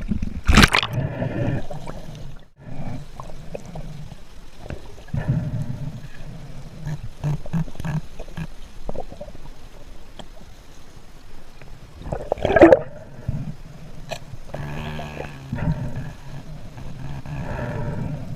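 Muffled gurgling water sounds around a spearfisher in the sea, with a low rumble throughout. There is a sharp noise about half a second in and a louder one about twelve and a half seconds in.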